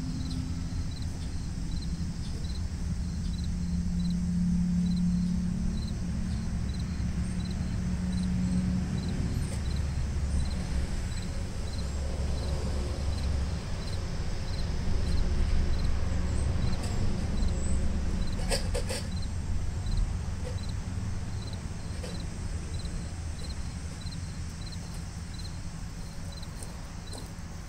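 Outdoor ambience: an insect chirping in a steady rhythm, about three short high chirps every two seconds, over a low rumble that swells and fades. A brief burst of clicks comes about two-thirds of the way through.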